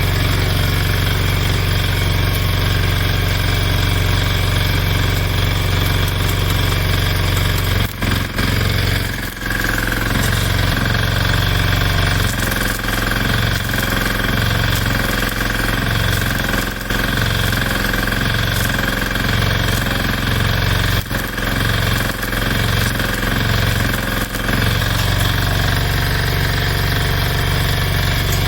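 An engine running steadily at constant speed. Through the middle stretch its low rumble pulses in a regular rhythm, with a couple of brief dips before that.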